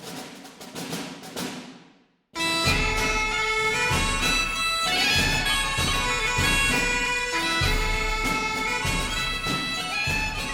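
Background music: bagpipes playing a lively tune over a steady low drone, coming in after a short break about two seconds in. Before the break, a rhythmic beat from another track fades out.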